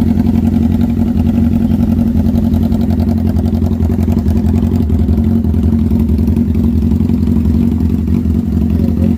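Honda CBR600 F3 inline-four engine idling steadily through a short aftermarket silencer, running smoothly after its rebuild.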